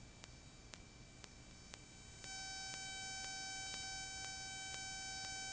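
Faint electronic audio in a Cessna 172's headset intercom. A few soft ticks come about every half second, then about two seconds in a steady, high, pure tone comes in and holds.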